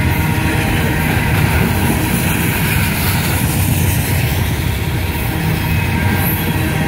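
Loaded coal train's hopper cars rolling steadily past at close range: a continuous rumble of steel wheels on rail.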